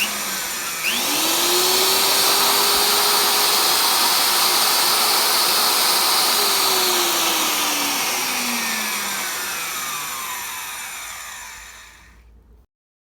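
Shibuya Dymodrill TS-090 core drill motor switched on, spinning up with a rising whine about a second in, and running at a steady speed. About halfway through it is switched off and winds down, the whine falling in pitch and fading over several seconds before the sound cuts off.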